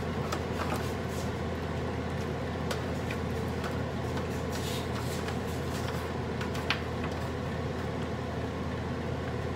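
A steady low hum, like a kitchen fan, with a few faint light ticks as handfuls of string beans are dropped into a stainless-steel pot of broth.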